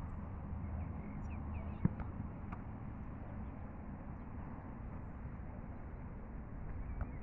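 Steady low wind rumble on the microphone, with one sharp thump of a football being struck about two seconds in.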